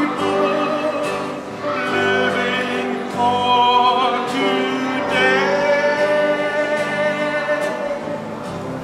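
Holiday song sung with instrumental accompaniment: voices hold long notes with vibrato over steady backing.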